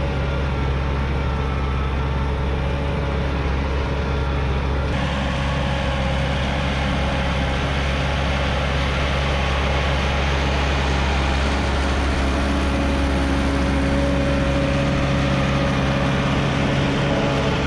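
Bulldozer's diesel engine running steadily with a deep, even drone, the sound shifting slightly about five seconds in.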